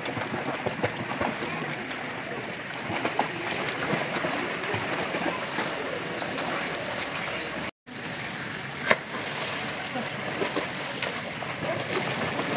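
Pool water splashing and sloshing from a swimmer kicking along with a foam kickboard, with one sharper splash about nine seconds in. The sound cuts out for an instant shortly before that.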